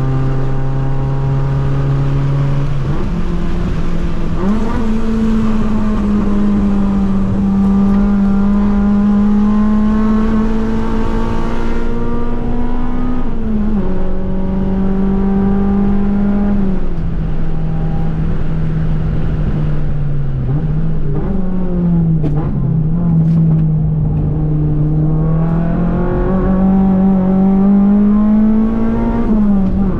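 Toyota 4A-GE 20-valve 1.6-litre naturally aspirated inline-four, heard from inside the cabin while driven hard on track. The engine note climbs, holds and drops in pitch several times as the car accelerates, shifts and slows for corners, with a brief wavering around two-thirds of the way through.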